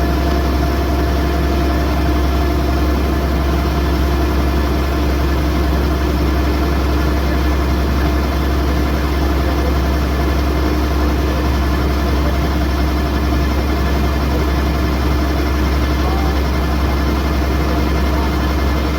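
Kubota DC108X combine harvester's diesel engine and machinery running steadily at a constant speed, with a continuous low hum and a steady whine.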